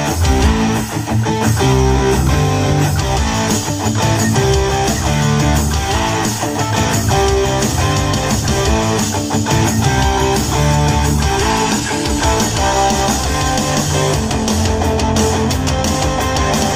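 Guitar-driven rock music with heavy bass, played through a JBL Xtreme 3 and a JBL Charge 5 Bluetooth speaker paired in PartyBoost, both with their fabric covers removed.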